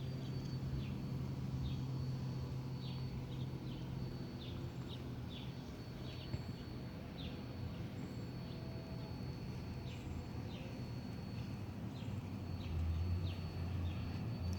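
Small birds chirping outdoors: many short, downward-sliding chirps come at irregular intervals. Under them runs a steady low rumble of distant traffic and a thin steady high tone.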